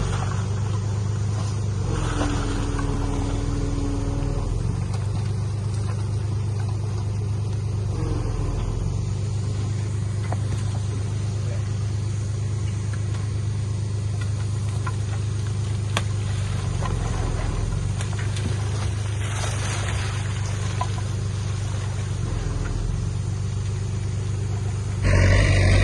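Diesel engine of heavy earthmoving equipment running steadily under work, with a low, even hum. It gets louder about a second before the end.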